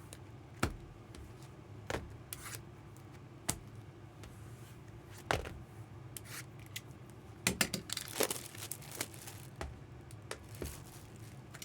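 Trading card pack wrappers being torn open and crinkled, with scattered sharp crackles and a denser stretch of tearing about eight seconds in.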